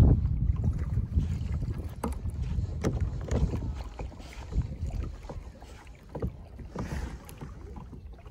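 Wind buffeting the microphone over choppy lake water, with scattered small splashes and slaps of water against a kayak hull. The wind rumble is strongest about the first second.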